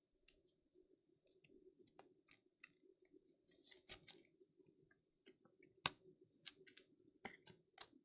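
Faint rustling and small clicks of trading cards being slid into rigid plastic top loaders. A sharper click comes about six seconds in.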